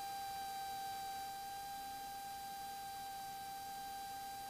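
A steady, faint electronic whine of one pitch with overtones over a light hiss, carried on the aircraft's intercom audio line into the camera; no engine or radio voice comes through.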